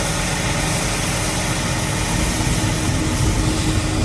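Combine harvester's engine running steadily while it unloads corn into a truck, a constant hum with no breaks.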